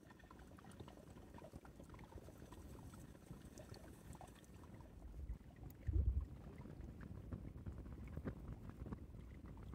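Wood fire crackling faintly in a small folding camping stove, with many small irregular snaps and pops. A low rumble about six seconds in.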